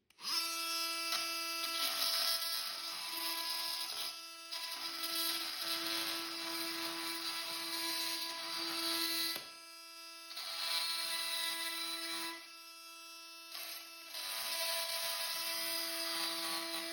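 Oscillating multi-tool with a Milwaukee carbide-tooth blade buzzing at a steady high pitch while it cuts through steel wood screws, with a gritty grinding over the buzz. The grinding drops out briefly three times as the blade eases off the cut.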